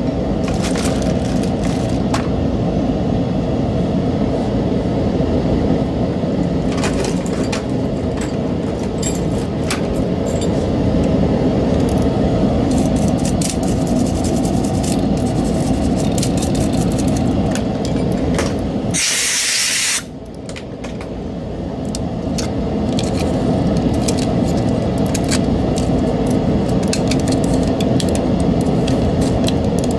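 Small plastic clicks and taps as a computer mouse's shell and parts are handled during disassembly, over a steady low background hum. About two-thirds of the way through comes a hiss lasting about a second, after which the hum dips and slowly returns.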